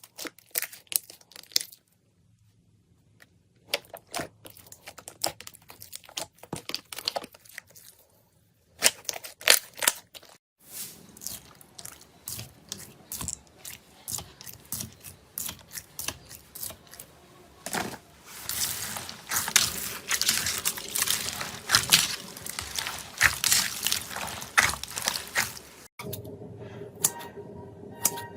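Slime being squeezed, stretched and poked by hand, making dense crackling and popping clicks. The sound comes in several separate stretches with brief silent gaps between them, and is densest about two-thirds of the way through.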